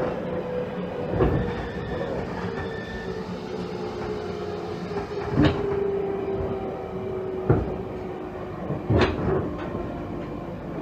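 JR Kyushu 813 series electric train heard from on board while slowing: a steady tone from its Toshiba GTO VVVF inverter slides slowly down in pitch under braking. Over the running noise come several sharp clacks of the wheels over rail joints or points.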